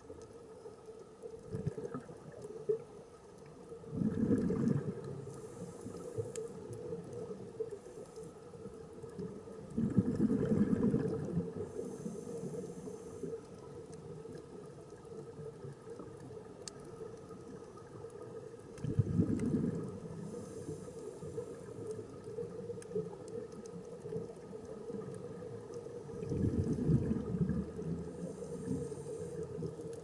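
Scuba diver breathing through a regulator underwater: four gurgling rushes of exhaled bubbles, six to nine seconds apart, each followed by a faint hiss of inhalation, over a steady hum.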